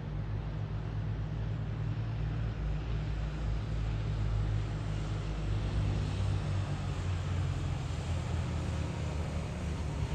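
Steady low rumble of road traffic, with motor vehicles passing slowly.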